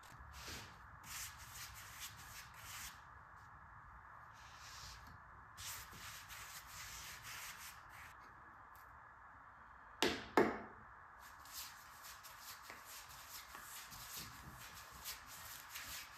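Hand sanding: a sheet of sandpaper rubbed over wood in short, repeated scratchy strokes. A loud double knock comes about ten seconds in.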